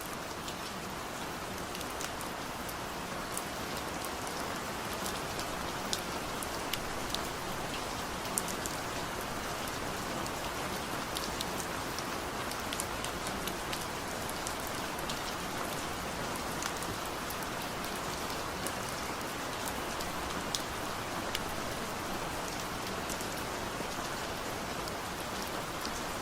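Steady rain falling: an even hiss with many scattered sharp drop ticks.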